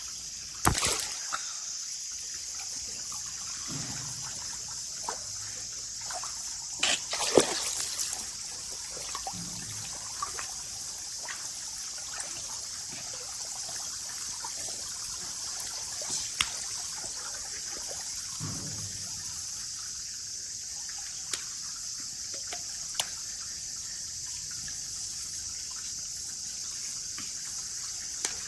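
Running water trickling steadily, with a few sharp clicks and short splashy bursts, the loudest about a second in and around seven seconds in.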